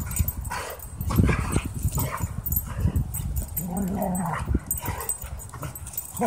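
A German Shorthaired Pointer and a Boxer play-fighting, giving off irregular rough dog growls and yips, with one longer held note about four seconds in.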